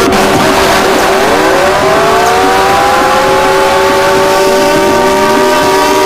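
Loud electronic emergency alert alarm: several tones glide upward together about a second in and settle into a held chord over a steady lower tone, with another set of rising tones near the end, all over a harsh hiss.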